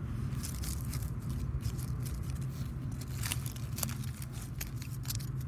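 Dry leaf litter crackling and soil scraping as fingers push bean seeds into the ground, with scattered small clicks over a steady low rumble.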